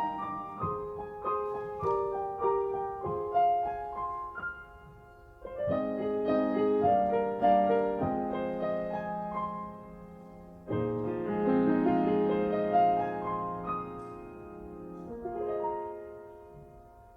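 Solo piano playing a slow, gentle passage: a melody over sustained chords, with fresh chords struck about five and eleven seconds in, dying away near the end.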